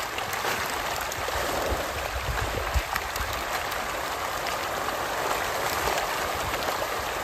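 A dense shoal of farmed fish thrashing and splashing at the pond surface as feed is thrown in, a steady churning of water.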